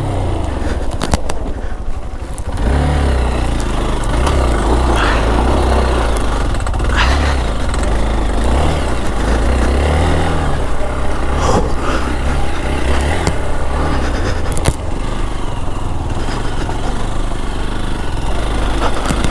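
Hero XPulse 200 4V's single-cylinder engine pulling hard on a rough off-road climb. It eases off briefly near the start, then runs under load again, with scattered clatter and scraping from stones under the tyres.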